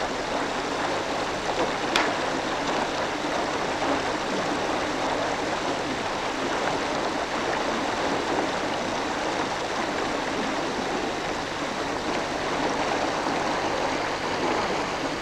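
A small river's water running steadily over its bed, an even rushing wash. A brief click about two seconds in.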